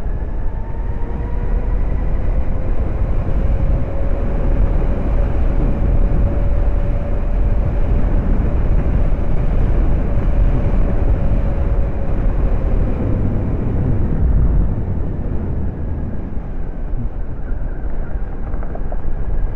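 Zero SR electric motorcycle under way: a thin drive-motor whine that rises a little as it accelerates, holds steady, then fades out about two-thirds of the way through as it slows. Heavy wind rush and road noise lie under it all and are the loudest part.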